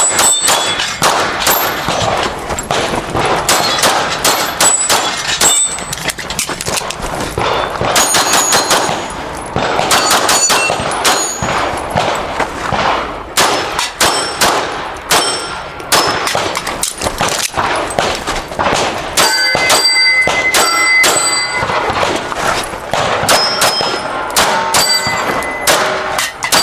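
Pistol fired in quick strings of shots during a timed stage, with steel targets ringing as they are hit.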